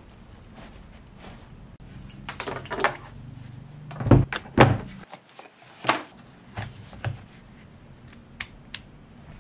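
Handling knocks: a scooter hub-motor wheel moved and set down on a table, with two heavy thumps about four seconds in and lighter knocks around them. Near the end come two short sharp clicks as a screwdriver and bit set are handled.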